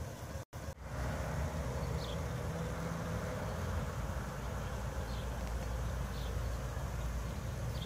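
Wind buffeting the microphone as a steady, fluttering low rumble, with a few short high chirps over it. The sound cuts out briefly twice about half a second in.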